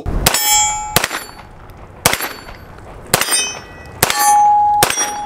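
9mm pistol shots fired at a steady pace of about one a second, six in all, each hit followed by the clear ringing of a struck steel target plate that hangs on for most of a second.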